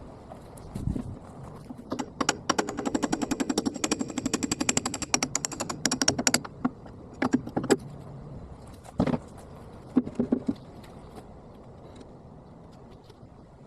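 Rapid run of sharp metallic impacts for about four seconds, then a few short bursts and single knocks, the pace quickened by footage sped up four times.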